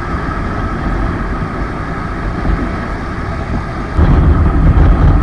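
Motorcycle riding at road speed, a steady engine drone mixed with road and wind noise. About four seconds in, the sound jumps to a much louder low rumble and stays there.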